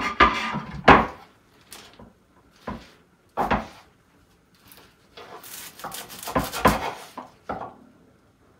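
Everyday household handling noises: a string of separate knocks and clatters, then a busier stretch of clattering from about five to seven and a half seconds in.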